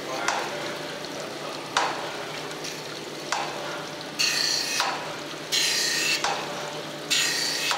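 Surface grinder wheel running wet over a cast-iron straight-edge casting while sparking out, barely cutting. Coolant hisses and splashes throughout. A higher grinding whine rises for spells of about a second, louder in the second half, as the table carries the work back and forth under the wheel, with sharp ticks every second or two.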